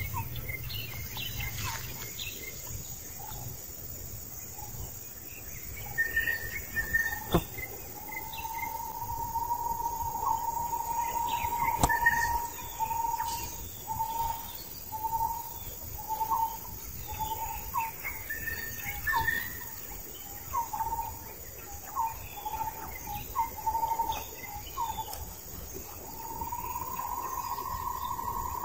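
Forest ambience: a steady high drone of insects, with a single-pitched call held for a few seconds and then repeated as short notes about once a second, some higher chirps, and two sharp clicks.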